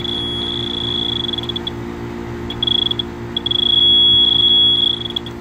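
Electronic refrigerant leak detector alarming at a 3/8 flare fitting on a copper-to-aluminum AC lineset: rapid high beeps run together into a solid tone, break off, then return and hold loud and steady for over a second before stopping. The solid tone means it is sensing R-410A leaking from that fitting. A steady low hum from the running AC unit lies underneath.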